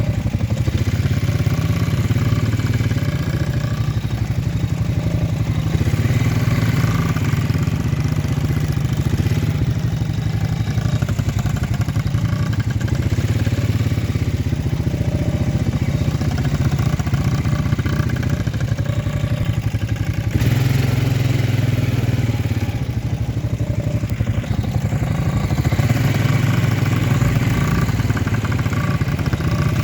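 ATV engine running steadily throughout, its level swelling and easing a little.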